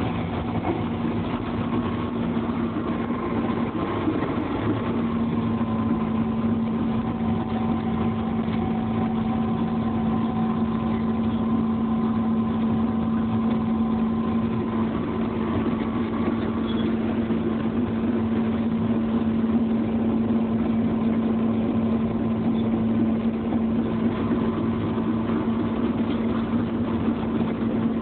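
Large excavator's diesel engine running steadily, heard from inside the operator's cab, with a constant drone that grows a little stronger about four seconds in.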